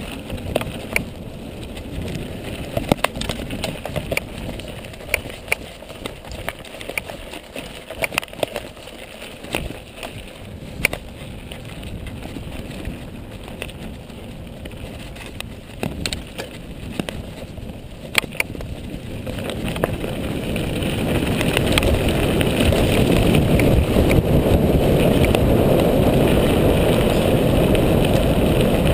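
Mountain bike rolling fast over a dirt trail: tyre rumble with frequent sharp clicks and rattles as the bike hits bumps. About two-thirds of the way in, a rushing noise of wind on the microphone and tyres grows much louder as the bike picks up speed.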